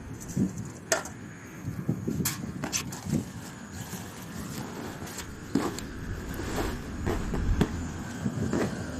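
Gear being handled: a dozen or so scattered, uneven clicks and knocks over a low rumble, with a few sharper ones near the start and about halfway.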